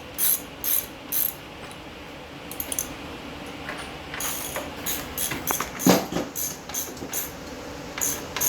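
Socket ratchet wrench clicking in quick strokes, run in short bursts with a pause in the middle, as bolts are drawn up on an engine mounting. A single metal clank sounds about six seconds in.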